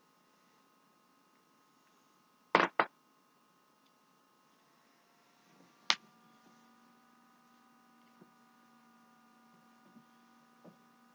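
Joints cracking: a quick double crack about two and a half seconds in, then a single sharp crack near six seconds, with a few faint clicks later, over a faint steady hum.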